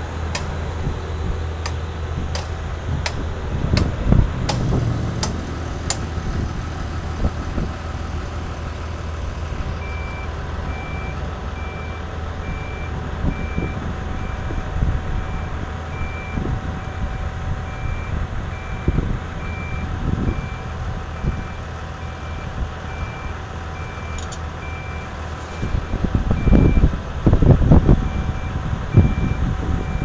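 Diesel engine of a crawler-mounted soil-nail drilling rig running steadily, with a row of sharp clicks in the first few seconds. From about ten seconds in, a travel or backup alarm beeps over and over as the rig moves on its tracks, and heavy knocks come near the end.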